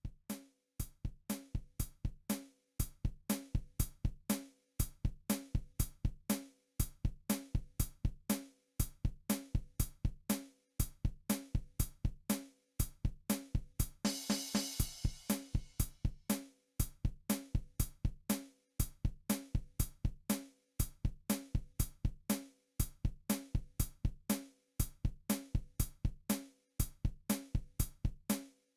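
Electric guitar played through a Marshall DSL valve combo amp in short, staccato chords in a steady rhythm, over a drum backing, with a cymbal wash a little past the middle.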